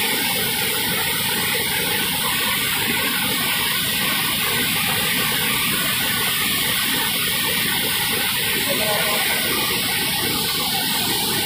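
Water pouring over a dam spillway into the river below, a steady loud rush of noise that does not let up.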